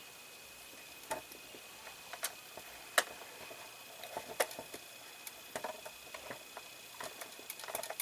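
Scattered small clicks and taps of a small screwdriver and plastic model parts as tiny screws are driven into a plastic seat, with the sharpest taps about three seconds in and again a little later.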